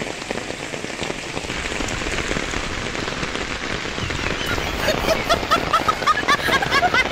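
Heavy monsoon rain pouring onto a flooded pavement and street, a steady hiss of rain on puddles and concrete. From about five seconds in, a run of short high-pitched chirps joins the rain.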